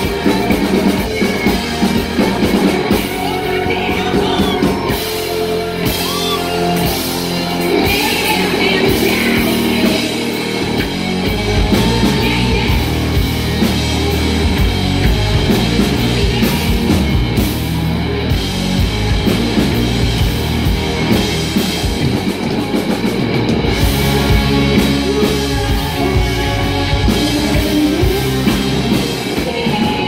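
Rock band playing live, loud and without a break: electric guitars, bass guitar and drum kit, with a singer's vocals.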